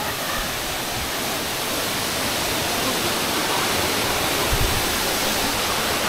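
Steady rush of a tall waterfall pouring into the pool at its foot.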